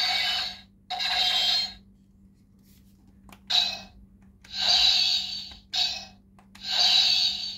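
Electronic sound effects played from a Kamen Rider Decade Ride Booker toy's built-in speaker: six short hissing bursts with sudden starts and short gaps between them, and a couple of faint clicks about three seconds in.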